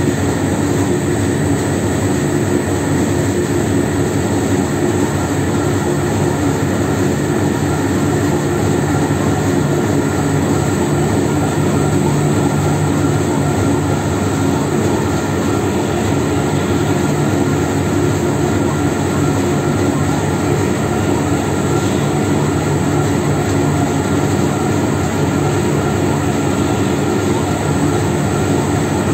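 Triple roll mill running, its steel rolls turning and grinding a thick paste between them: a steady machine drone with several held tones.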